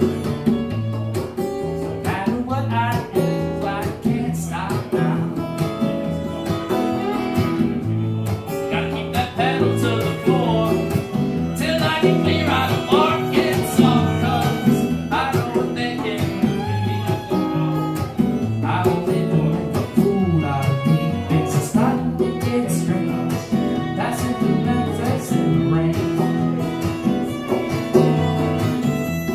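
Live acoustic trio playing a country-blues song: strummed acoustic guitar, violin and congas, with a man singing.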